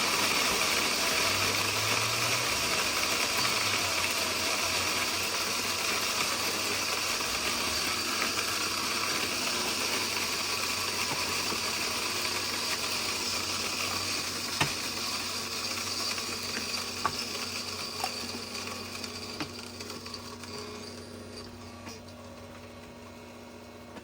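Electric mini flat burr coffee grinder with 40 mm burrs grinding a dose of espresso beans at its finest setting. The motor starts abruptly and grinds steadily with a few small clicks. The grinding noise thins gradually over the last several seconds as the burrs empty, and the motor cuts off at the very end.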